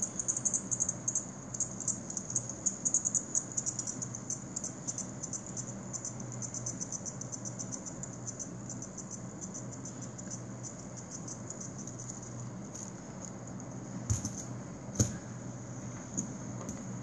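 A fidget spinner spinning in the hand, giving a fast, even clicking that slows and fades away over about ten seconds. A few louder knocks near the end come from handling it.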